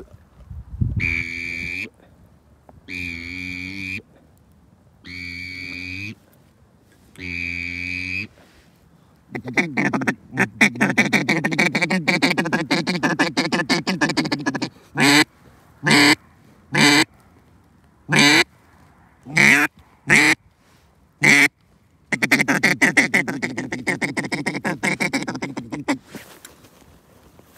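Duck call blown by a hunter: four drawn-out quacks about two seconds apart, then a long run of rapid chattering notes, a string of single short quacks, and a second fast run near the end.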